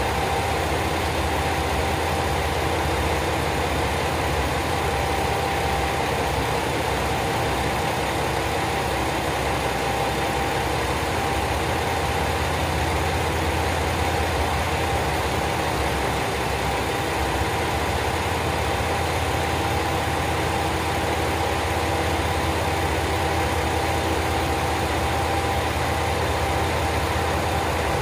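Diesel railcars idling at a standstill, the engines of a KiHa 47 local train and a HOT7000 Super Hakuto unit: a steady low engine rumble with a constant hum over it.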